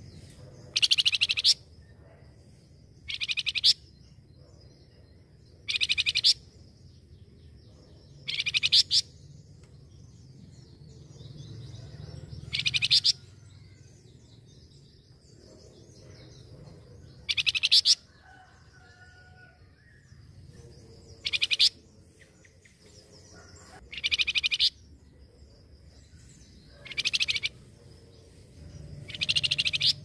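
Flamboyan songbird singing in short, fast trilled phrases, each under a second, repeated about ten times every two to four seconds, with fainter chirps in between.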